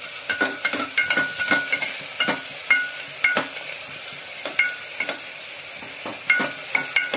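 Metal spatula stirring and scraping onions and tomatoes frying in oil and butter in a metal pressure cooker pot: irregular clinks and scrapes, each with a brief metallic ring from the pot, over a steady sizzle.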